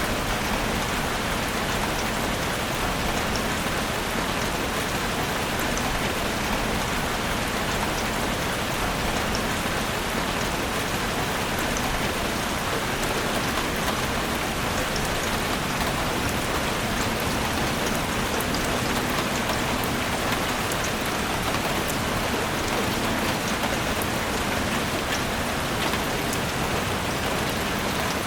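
Steady rain falling in a forest, a constant even hiss with scattered drop ticks throughout.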